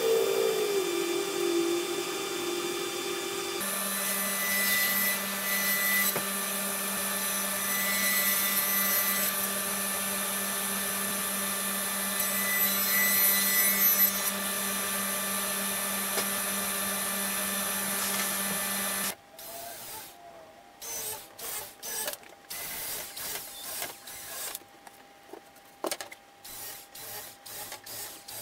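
A table saw with overhead dust collection runs with a steady hum and hiss, after a machine tone that falls in pitch at the start. It is louder for a couple of seconds as a plywood sheet is fed through. About two-thirds in the running stops suddenly, and scattered knocks and taps follow as a wooden cabinet panel is handled.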